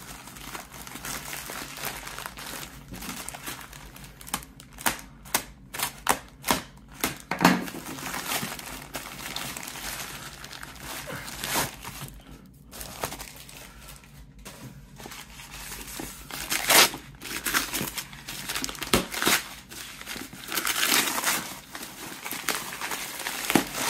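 A plastic mailer bag and brown paper wrapping being torn open and crumpled by hand, with a quick run of sharp rips a few seconds in and scattered bursts of crinkling after.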